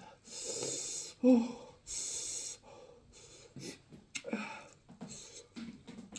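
Close-miked eating sounds: two loud breathy hisses of about half a second each, with a short voiced sound between them about a second in. Small wet chewing clicks follow.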